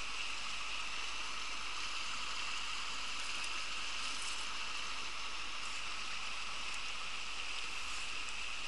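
Steady babbling of a small river running over a shallow stony riffle.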